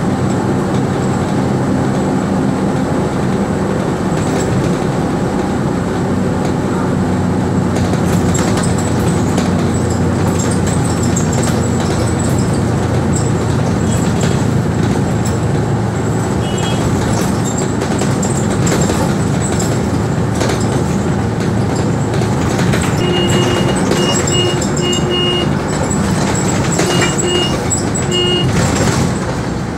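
Cabin noise inside a moving bus: the engine runs steadily under road and wind noise, with frequent rattles of the body and windows. Short repeated beeps sound in two bursts near the end.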